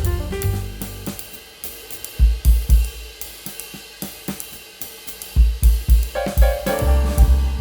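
Background music with a drum kit keeping a steady beat on hi-hat and cymbals. The bass and melody drop out about a second in, leaving mostly drums with groups of bass drum hits, and come back in near the end.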